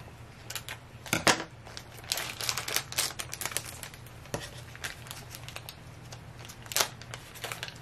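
Scissors snipping open a thin clear plastic bag, then the plastic crinkling and tearing in irregular crackles as a small toy accessory is pulled out of its wrapping; the sharpest snap comes about a second in.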